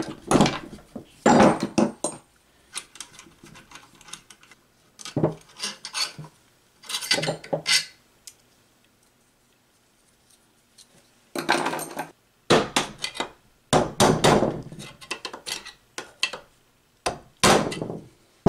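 Irregular metal clanks and knocks of hand tools and loose through-bolts against a small electric motor's steel housing and the wooden bench, as the motor is taken apart and its end bell is pried loose. A quiet stretch in the middle, then a quicker run of louder clanks.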